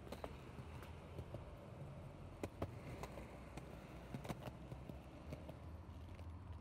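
Skateboard rolling on a concrete sidewalk: a low, steady wheel rumble, with sharp clacks at irregular moments as the wheels cross cracks and seams.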